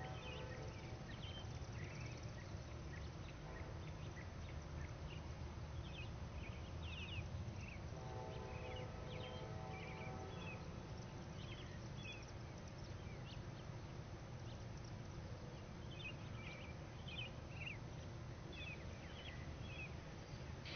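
Faint outdoor ambience: birds chirping in short calls throughout, over a steady low rumble, with a faint pitched drone that fades in and out about three times.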